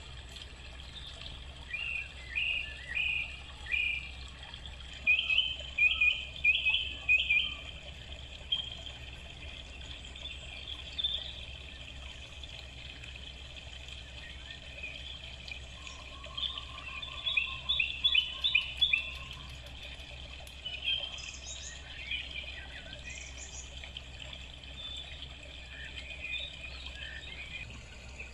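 Birds chirping in short runs of quick, high notes, several times over, with one lower trill about midway, over a steady faint low hum.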